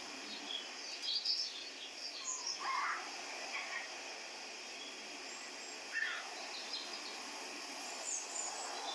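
Small birds chirping in short scattered calls over a steady background hiss.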